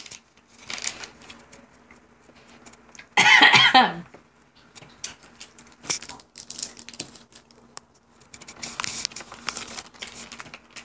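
Plastic candy packaging being handled: scattered crinkles and small clicks, busiest near the end, with one short loud vocal sound about three seconds in.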